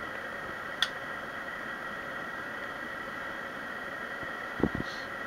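Steady high whine and hiss with no gunshot, broken by a small sharp click about a second in and a short dull thump near the end.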